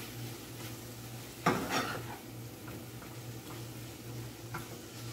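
A metal spoon scraping and clinking in a frying pan of vegetarian meat, onion and sweet pepper frying with a faint sizzle. There is one loud clatter about a second and a half in and a few lighter taps later, over a steady low hum.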